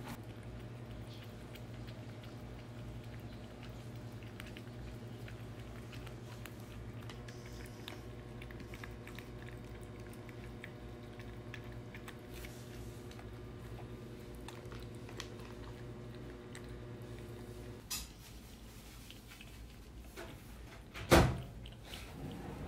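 Cats licking and chewing soft wet food, with many small wet clicks, over a steady low hum that cuts off about 18 s in. Near the end comes a single loud knock.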